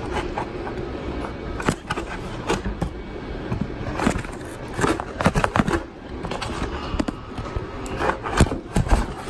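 Cardboard box scraping and rustling as a cordless hedge trimmer is worked out of its packaging, with scattered knocks and clatters, bunched about four to five seconds in and again near the end.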